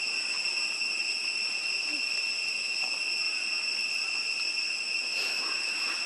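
Steady, high-pitched drone of insects calling without a break, with a few faint clicks near the end.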